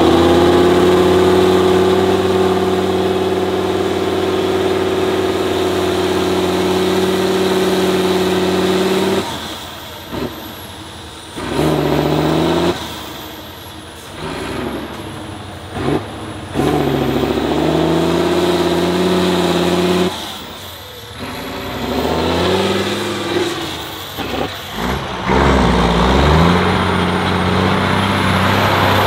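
Diesel engine of a 6x6 trial truck working under load, holding a steady pitch for several seconds. Its level then drops away and returns several times, and the engine revs up in a few rising pushes before settling steady again near the end.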